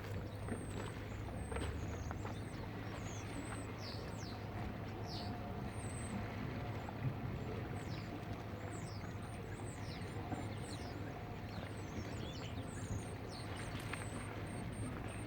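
Small birds chirping in short, high, thin calls, many sliding downward, scattered throughout over a steady low rumble.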